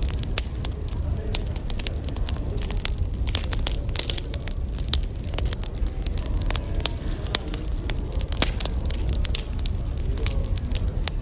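Wood fire crackling, with many sharp irregular pops and snaps over a steady low rumble.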